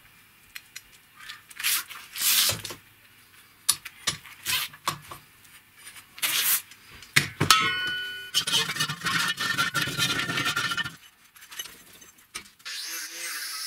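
Steel workshop parts (threaded rod, a hex coupling nut, steel tubing) being handled and fitted: scattered clicks and knocks, a single ringing metallic clink about halfway through, then a few seconds of close rattling and scraping, and a steady scraping hiss near the end.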